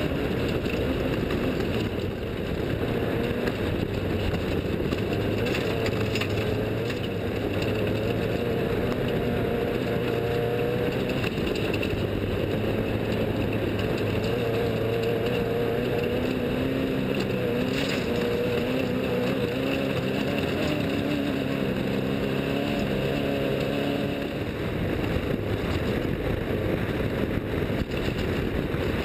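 Engine of an off-road desert racing vehicle running, its pitch shifting up and down, over a steady rushing noise.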